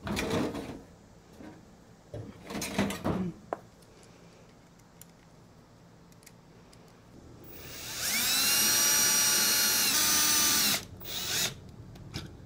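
Cordless drill running: the motor whines up in pitch, runs steadily for about three seconds, then stops, with a short second burst just after. Earlier, a few knocks and clatters as the switches and metal electrical boxes are handled.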